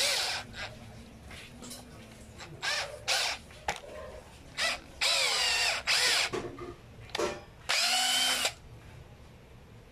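Electric drill with a small bit run in about six short bursts, its motor whine rising and falling with each trigger pull, drilling out a stuck part.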